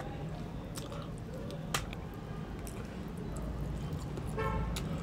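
Quiet eating sounds: soft chewing and mouth clicks over a steady low hum, with a short pitched tone near the end.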